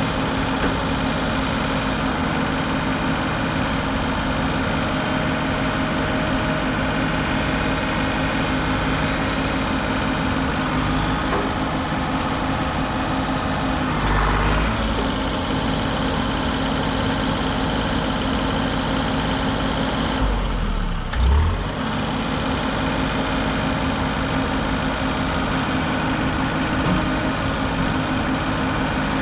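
Mini excavator's diesel engine running steadily under work, with two brief low thumps, about halfway through and again about two-thirds of the way in.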